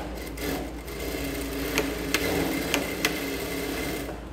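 Bruce R2 direct-drive computerized lockstitch industrial sewing machine running steadily as it stitches a seam, with a few sharp clicks, stopping just before the end.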